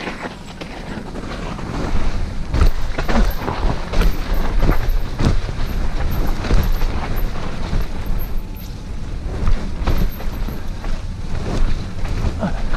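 Mountain bike descending a rough dirt trail: wind rushing over the microphone and tyres rumbling over the ground, with frequent knocks and rattles as the bike hits bumps. It grows louder about two seconds in as the speed picks up.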